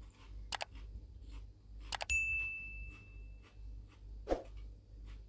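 Cutlery clicking against a ceramic bowl: a couple of sharp clicks, then one strike about two seconds in that leaves the bowl ringing with a clear high tone for over a second as it fades.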